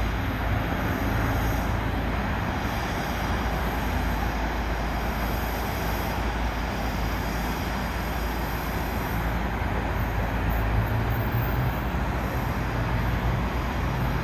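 De Havilland Canada Dash 8 Q400 climbing away after takeoff, its twin Pratt & Whitney PW150A turboprops and six-blade propellers making a steady drone with a low hum underneath.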